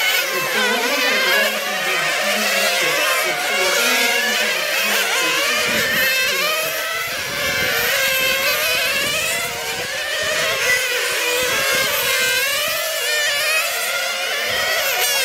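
Several 1/10-scale nitro RC touring cars racing, their small two-stroke glow engines running at high revs, the overlapping pitches rising and falling as the cars accelerate and slow through the corners.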